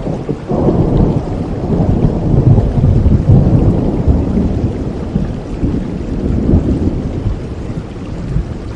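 Rolling thunder rumbling over steady rain. The rumble swells about half a second in, peaks a few seconds later and slowly fades.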